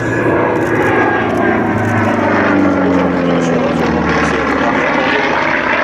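North American T-28B Trojan's nine-cylinder Wright R-1820 radial engine and propeller running loud as it flies past, the pitch falling in the middle as it goes by.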